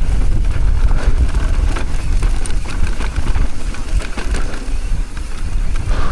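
Downhill mountain bike descending a dry, loose, dusty trail at speed: wind rumble on the microphone, tyres skidding and crunching on the dirt, and the bike rattling with many small knocks.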